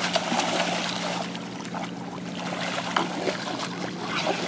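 Shallow water splashing and sloshing as a child wades and flops forward into it: irregular small splashes, with a sharper one about three seconds in.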